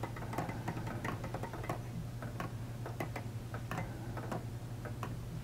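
3D-printed weight-driven pendulum clock ticking, its escapement giving a run of light, sharp ticks, unevenly spaced at roughly two a second.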